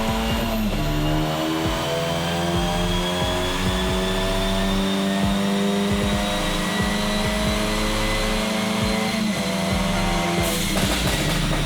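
Ford Focus ST's 2.0-litre turbocharged EcoBoost four-cylinder under full load on a chassis dyno, its pitch slowly rising through the pull. A broad rush of noise comes in near the end.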